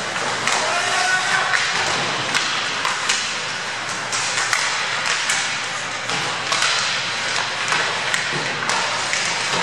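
Ice hockey play: skate blades scraping the ice and sticks clacking against the puck and ice, heard as irregular sharp clicks and knocks over a steady hiss. A brief shout comes about a second in.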